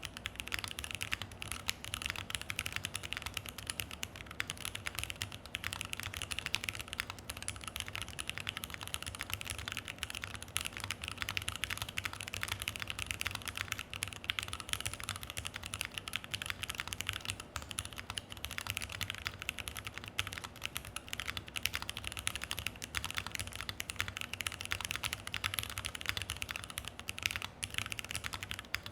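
Continuous fast typing on a Keychron Q1 mechanical keyboard with an FR4 plate, JWK T1 switches and ePBT keycaps: a dense, unbroken stream of key clacks.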